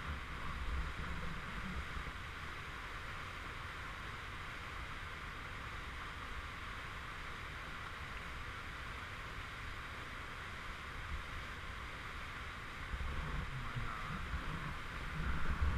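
Whitewater rushing steadily over a rocky river waterfall and its rapids. A low rumble under it is stronger at the start and swells again near the end.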